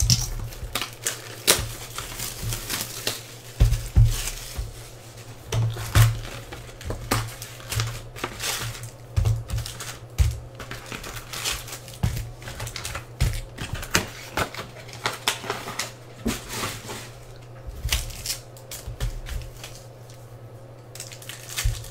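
Hands opening a cardboard 2018 Bowman Hobby baseball card box and handling the stack of foil-wrapped card packs inside: irregular taps, scrapes and wrapper crinkles. A steady low hum runs underneath.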